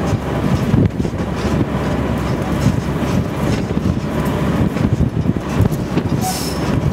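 Diesel locomotive 401Da-131 running along the track, heard from on board: a steady engine rumble with wheels clicking over the rails, and a brief hiss near the end.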